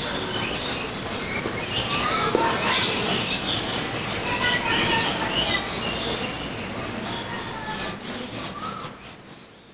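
Soft graphite pencil shading on drawing paper: continuous rubbing and scratching strokes with squeaky streaks, then a quick run of short back-and-forth strokes before the sound fades out.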